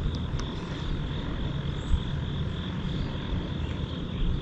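Steady outdoor background: a low, even rumble with a thin, steady high drone above it, and a couple of faint ticks near the start.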